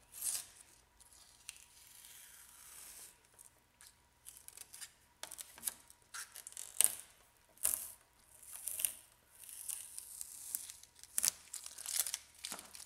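Masking tape being peeled off a car's painted bodywork and torn away from the edge of a dried PlastiDip coating: a run of short ripping and crackling noises at irregular intervals, with the peeled tape crumpled in the hand.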